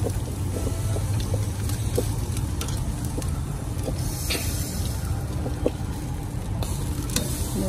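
Raw meat sizzling on hot barbecue grill grates as pork pieces are laid down, over a steady low rumble, with a few light clicks; the sizzle swells briefly about four seconds in.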